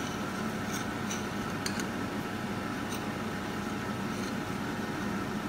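Metal spoon stirring heating spiced milk in a stainless steel saucepan, with a few light clicks of the spoon against the pan over a steady background hum.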